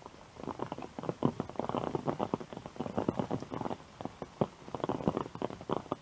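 Rain dripping from tree leaves onto an open umbrella overhead: a dense, irregular pattering of taps on the umbrella canopy.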